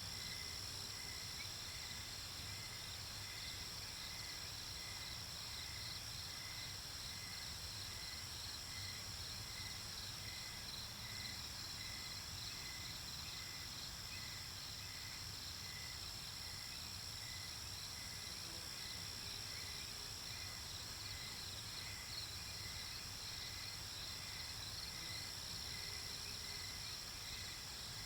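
Night-time cricket chorus: a steady high trill, with one cricket chirping evenly about one and a half times a second, over a faint low hum.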